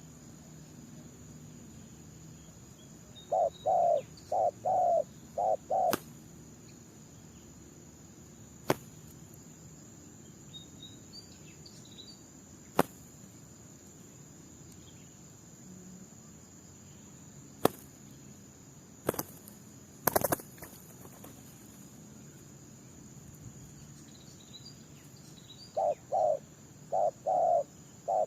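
Spotted doves cooing: one phrase of about six low, rhythmic coos a few seconds in and another near the end, with a few sharp clicks between them. This is a decoy dove and a wild one answering each other.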